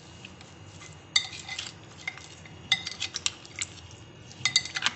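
A spoon clinking and scraping against a glass mixing bowl while stirring marinated mutton, in three short flurries of clinks.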